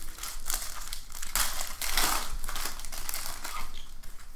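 Plastic wrapper of a trading card pack crinkling and crackling as it is torn open and crumpled in the hands, in a run of bursts that is loudest about two seconds in.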